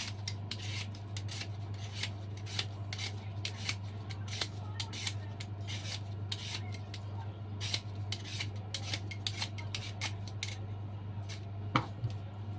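Chayote being peeled: quick, repeated scraping strokes of a blade across the skin, about two or three a second, with one sharper click near the end.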